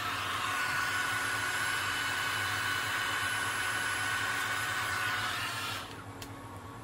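Handheld hair dryer blowing steadily, a rush of air with a thin steady whine over it. It is switched off and cuts out near the end.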